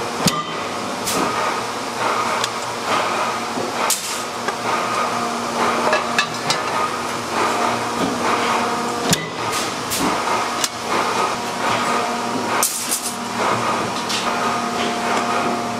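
Stamping press forming and trimming stainless steel wok bodies: a steady machine hum with irregular sharp metal clanks and knocks throughout.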